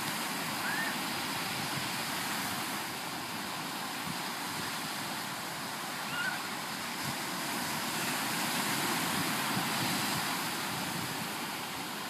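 Small surf breaking and washing up on a sandy beach: a steady hiss of waves that swells a little twice and eases again.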